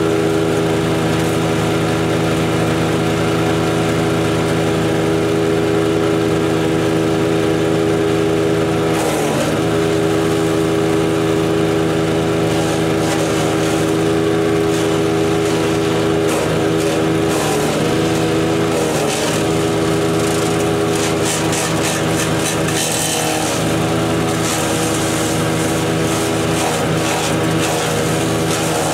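DK2 Power OPC506 wood chipper's Kohler engine running at full throttle, its pitch sagging briefly several times as branches are fed in and chipped, with crackling of wood in the drum. The chipper is slow to take the branches, far from chipping as fast as it can be fed.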